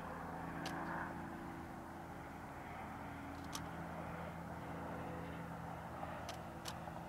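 A steady low hum with a faint hiss underneath, broken by four short, faint clicks.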